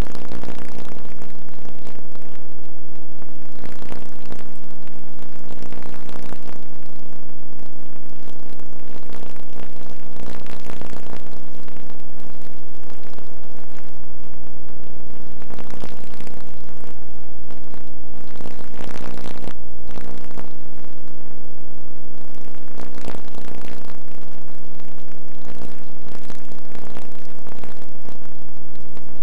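Loud, steady buzzing hum made of many evenly spaced tones, with irregular brief crackles and rustles through it.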